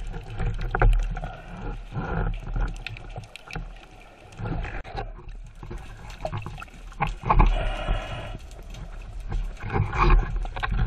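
Muffled underwater sloshing with a low rumble and irregular knocks, heard through an underwater camera housing mounted on a speargun.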